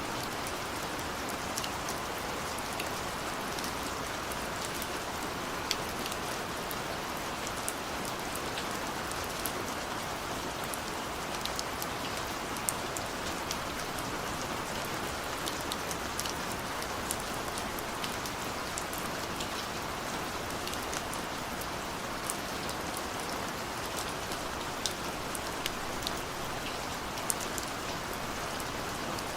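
Steady rain falling on a window: an even hiss with many scattered sharp drop ticks against the glass.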